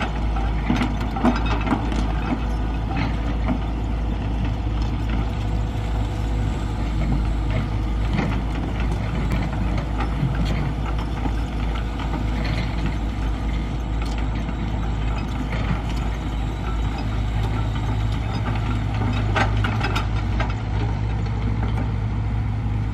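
Hitachi crawler excavator's diesel engine running steadily while it digs soil, with scattered clanks and knocks through the work.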